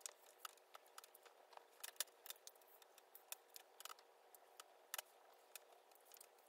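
A DYKEMANN heated straightening brush being drawn through long hair: faint, irregular crackling clicks of the bristles combing through, several a second.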